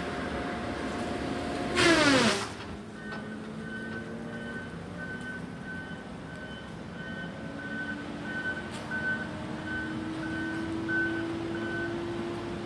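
Diesel engine of a logging machine working at a distance, its pitch dropping sharply with a loud burst about two seconds in. Then its reversing alarm beeps about twice a second for roughly nine seconds while the engine note slowly rises.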